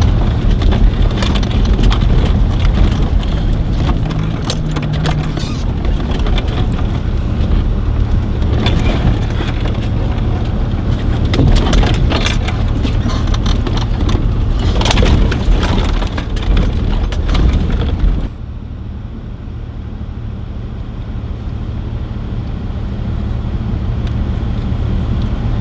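A 4x4's engine running while the vehicle drives over rough ground, with frequent knocks and rattles from the body and suspension. About three-quarters of the way through, the clatter and hiss drop away suddenly, leaving the engine's low running sound.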